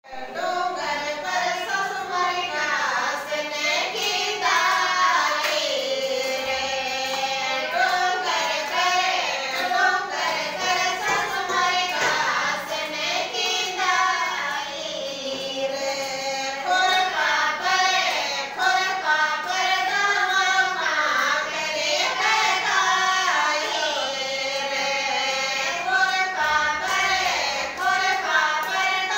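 Women singing a Rajasthani khyal folk song together, with no instruments, their hands clapping in time.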